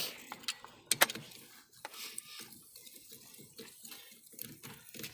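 Several sharp clicks and knocks in the first two seconds, the loudest about a second in, followed by faint irregular ticking.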